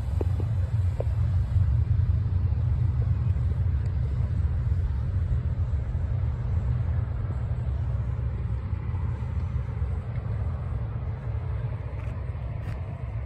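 Low rumble of wind buffeting the microphone, mixed with the drone of a small propeller plane flying away, slowly growing fainter.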